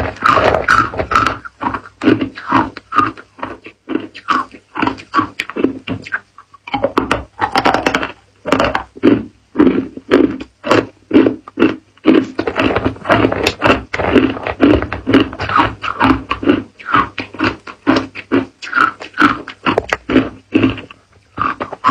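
Hard, clear ice cubes crunched and chewed close to the mouth, a rapid run of sharp crunches several a second, with a short lull about six seconds in.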